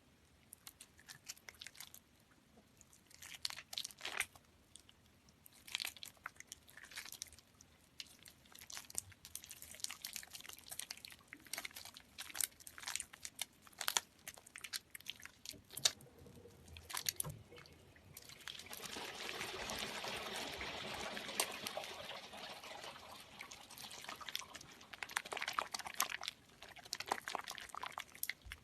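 Soaked soap being squeezed by hand: irregular wet squishing and crackling, with a longer, denser stretch of squelching about two-thirds of the way through.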